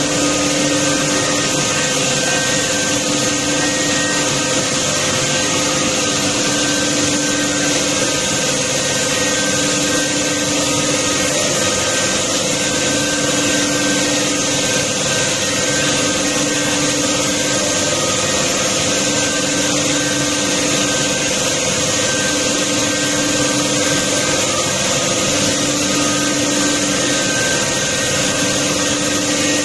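Automatic PVC pipe threading machine running steadily as the plastic pipe spins under a coolant spray: a continuous mechanical hum and hiss with a few held tones.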